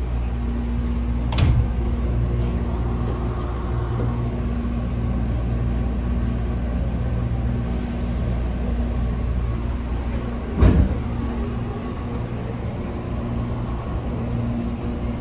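Commuter train interior: the steady low rumble of the car, with a faint hum that comes and goes, a sharp click about a second and a half in and a louder thump at about ten and a half seconds.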